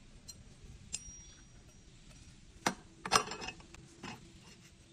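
Metal clinks from a steel disc brake rotor and a hex key being handled on an e-bike's hub motor: a light click about a second in, a sharp clink a little past halfway, then a short rattling run of clinks right after, with a last softer one near the end.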